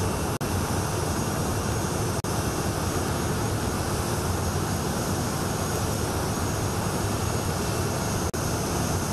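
Jet engines of the Indonesian presidential Boeing 737 running on the ground: a steady loud roar with a faint high whine over it. The sound cuts out for an instant twice.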